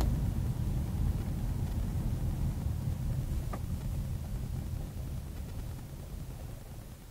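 Low, steady road and engine rumble of a car driving in city traffic. It fades over the last couple of seconds as the car slows behind the traffic ahead.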